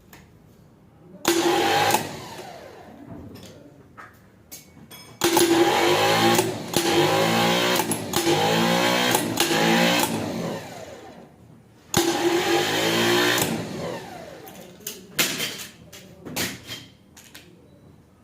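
Repaired Delco Remy starter motor run on the bench in three bursts, a short one, then one of about five seconds, then one of about two seconds, each whirring and then winding down.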